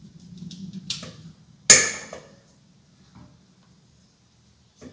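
Dry coconut meat being pried away from its hard shell with a tool: a few small cracks and scrapes, then one loud sharp crack about a second and a half in, and another sharp crack at the very end.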